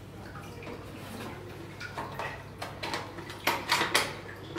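Light knocks, clicks and rustling of packaging being handled in a cardboard box, with a cluster of sharper clicks in the last second and a half.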